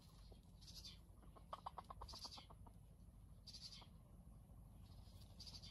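Near silence with a faint bird call: a quick run of about ten clicking notes a couple of seconds in, and a few soft high chirps about a second and a half apart.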